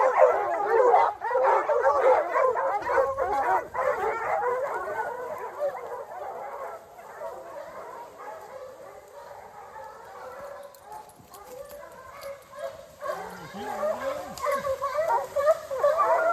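A pack of bear hounds baying and bawling together on a bear, many voices overlapping. The baying is loud at first, dies down through the middle, then swells again a few seconds from the end.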